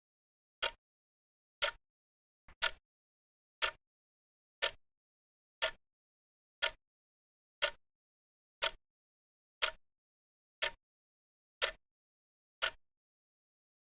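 Clock ticking sound effect: one sharp tick each second with dead silence between. The tick about two and a half seconds in is doubled, with a fainter click just before it.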